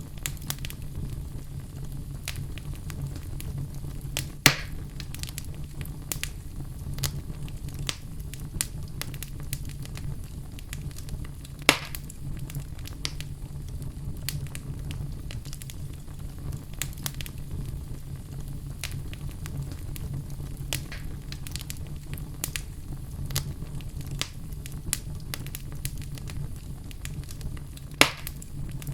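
Wood fire crackling steadily over a low rumble, with frequent small crackles and three louder pops spread through it.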